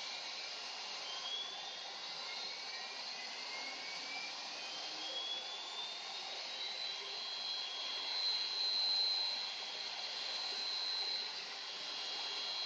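CNC stone router's spindle motor spinning up: several rising whines that level off into a steady high whine about seven seconds in, over a steady hiss.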